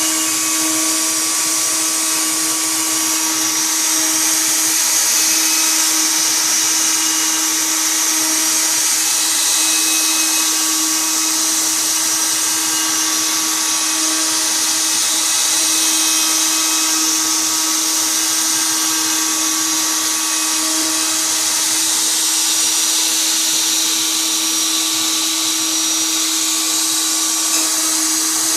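Bosch 1617EVS router running steadily at speed, a constant whine over hiss. The level swells and eases slightly every few seconds, without stopping.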